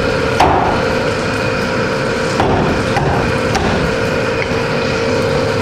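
Cleaver chopping through cooked chicken onto a wooden chopping board: sharp chops about a second apart, the hardest about half a second in, over a steady background hum.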